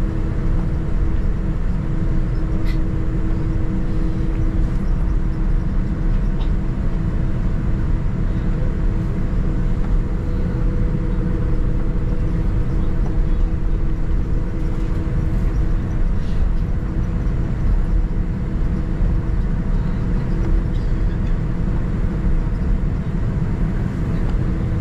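Steady cabin noise inside a Boeing 787-9 airliner: a deep, even rumble with a few faint steady hums above it, holding level throughout.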